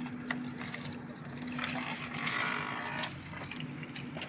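JCB 3DX backhoe loader's diesel engine running with a steady hum while its bucket crushes bamboo house walls, with scattered cracks and a burst of crackling and snapping in the middle. The engine hum stops about three seconds in.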